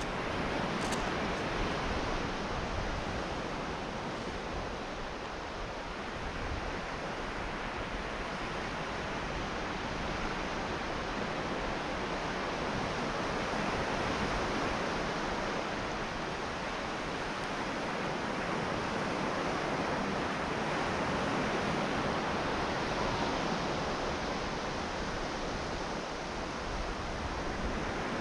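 Sea surf on a sandy beach: a steady rush of breaking waves that slowly swells and eases.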